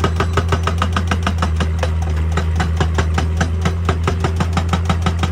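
Excavator's hydraulic breaker hammering rock in rapid, even blows, about six a second, over the steady hum of the excavator's diesel engine.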